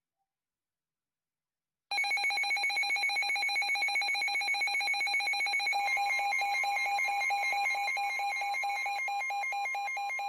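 NOAA weather radio's alert alarm going off about two seconds in: a loud, fast-pulsing electronic beep at a steady pitch, the sign that a new warning has been received. About six seconds in, a second steady tone a little higher in pitch joins it, the broadcast's warning alarm tone coming through ahead of the announcement.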